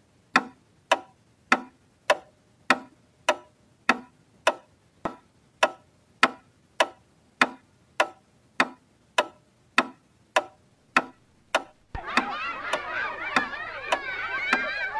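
Clock ticking steadily, a little under two ticks a second. About twelve seconds in, a loud, dense layer of many wavering, overlapping tones comes in under the ticking.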